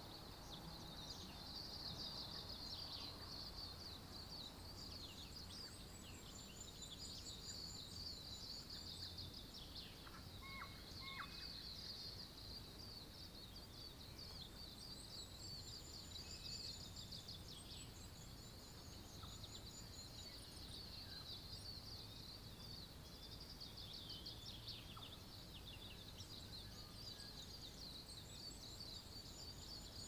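Faint backyard nature ambience: birds calling over a steady, high-pitched chirring chorus, with a low rumble beneath.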